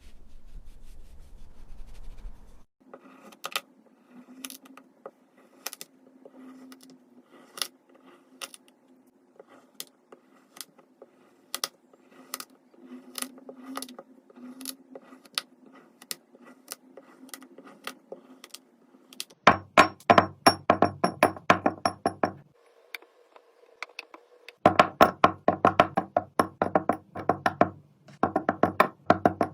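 Knife cutting kinetic sand: scattered light ticks at first, then two runs of rapid, loud chopping taps in the last third.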